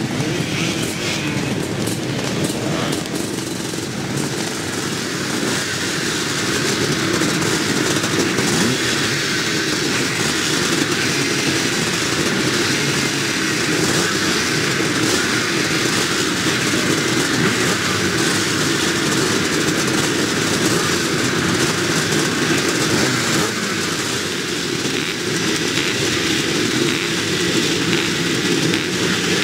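Vintage twin-shock motocross bikes running together, a dense, continuous engine noise with riders blipping their throttles as they wait at the start gate. It grows louder a few seconds in.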